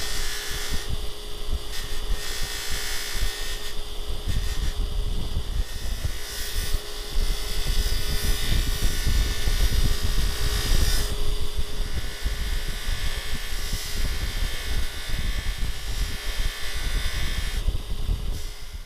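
Scotch-Brite wheel spinning on its motor with a steady hum, the shaper tool-head lock held against it to polish its hand-filed edges; the hiss of the part on the wheel swells and eases in spells as it is worked, and the sound cuts off right at the end.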